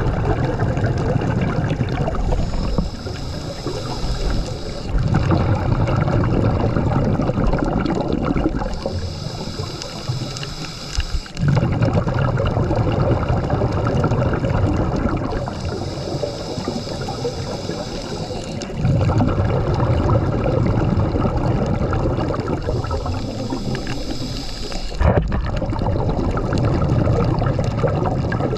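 Scuba diver breathing through a regulator underwater: a hiss on each inhale alternating with a low bubbling rush on each exhale, about four slow, even breaths.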